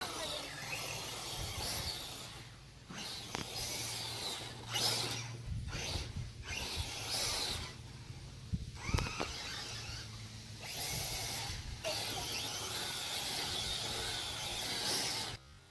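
Losi Baja Rey RC truck's electric motor whining in repeated throttle bursts, with short pauses between and a rising whine about nine seconds in.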